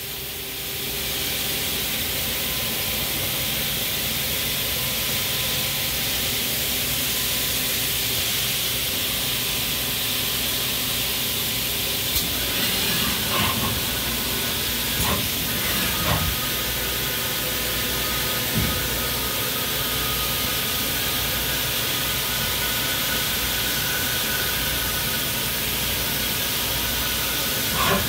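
Steady hiss and hum of a powered-up Hardinge Quest gang tool CNC lathe standing idle, with several steady tones. A few light clanks and knocks come in the middle and again near the end.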